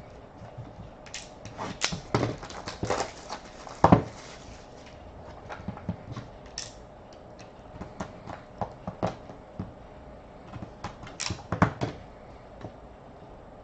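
Hands opening and handling a trading-card box and its packs: irregular clicks and taps of cardboard with short rustling tears, busiest about a second in and again near the end.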